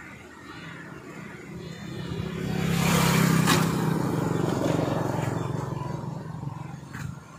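A motorcycle approaching and passing close by: its engine hum and rushing tyre noise build to a peak about three seconds in, then fade away.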